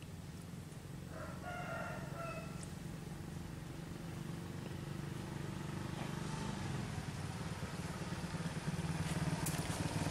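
A rooster crows once, about a second in. Under it a motorcycle engine hums low and grows steadily louder as it approaches, loudest near the end.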